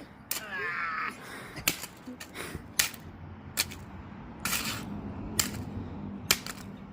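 Hammer blows on a Ring video doorbell: about eight sharp strikes, roughly one a second, as the doorbell is smashed.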